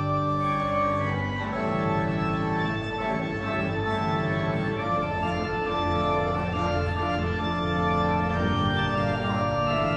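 Church organ playing sustained, slowly changing chords.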